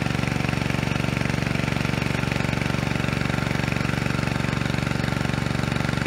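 A small engine running steadily at an even speed, with a fast, regular pulse.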